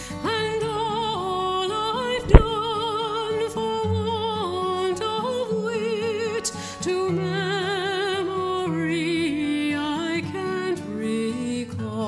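Background music: a slow melody of held, wavering notes over steady lower accompaniment, with one sharp click about two seconds in.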